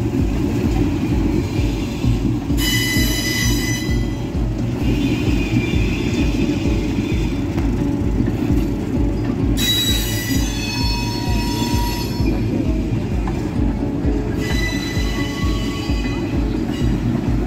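Freight train of boxcars and covered hoppers rolling slowly past, a steady rumble with high-pitched wheel squeal coming and going in three bouts.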